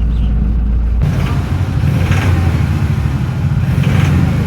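Toyota Hilux 1GD four-cylinder turbodiesel engine running at idle. About a second in, the sound turns rougher and busier. The mechanic puts the engine's black smoke down to an injector with a stuck nozzle.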